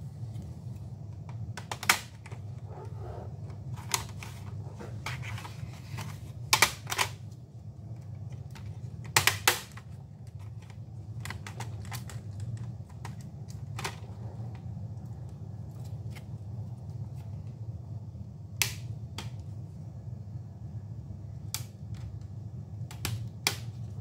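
Irregular clicks and knocks of a Dell Inspiron 15 5558's plastic case being handled and moved on the bench, the loudest a few pairs of sharp taps, over a steady low hum.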